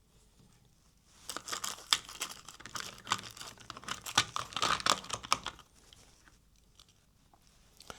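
Small loose pieces of lead being crammed into a die-cast motor casing: a dense run of quick clicks and crinkling scrapes that starts about a second in and stops after about five and a half seconds.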